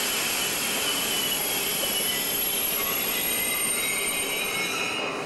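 Wheels of a DB passenger train's coaches squealing as the train rolls slowly along the platform: thin high squeal tones that waver in pitch over a steady rolling noise.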